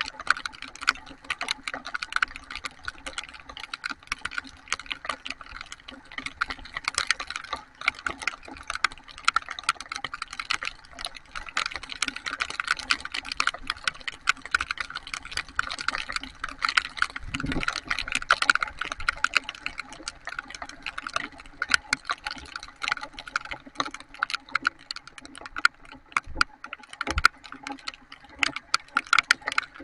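Heavy rain: a dense, rapid patter of raindrops striking a hard surface.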